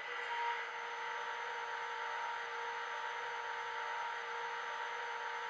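Irish A class diesel locomotive sound from a DCC sound decoder, playing through the model's small speaker while the locomotive stands still: a steady whir and hiss.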